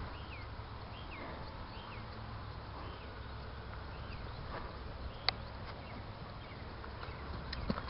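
A horse's hoofbeats on gravel arena footing, faint at first and becoming a run of clear knocks near the end as it canters closer. Underneath is a steady low wind rumble on the microphone, with faint repeated falling chirps and a single sharp click about five seconds in.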